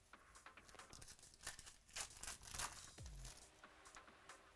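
Wrapper of a 2017 Chronicles Baseball card pack being torn open and crinkled by hand, faint, with the loudest rips about two seconds in and a soft thump a little after three seconds.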